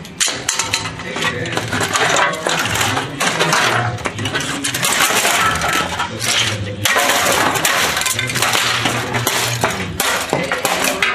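Golf club repeatedly hacking at a plastic electronics cabinet and its metal chassis: a rapid, continuous run of cracking, crunching and clattering blows, with broken plastic and parts clinking as they scatter.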